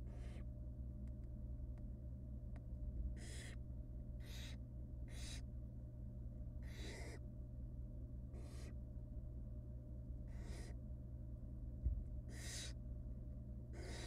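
Barn owl nestlings making their hissing begging calls while being fed: about eight short rasping hisses, each under half a second, spaced one to two seconds apart. A steady low hum runs underneath, and there is a single thump just before the end.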